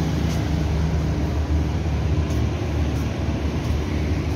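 Generator engine running steadily with a low hum, driving the ropeway because the mains power is out.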